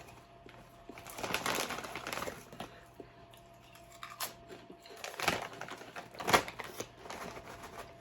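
Crinkling and crunching from potato chips and their foil snack bags being handled: a burst of rustling about a second in, then a few sharp crackles.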